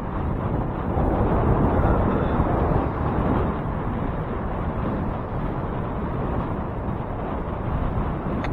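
Wind and road noise on the microphone of a camera riding along on a bicycle: a steady, heavy noise that is loudest for a couple of seconds about a second in.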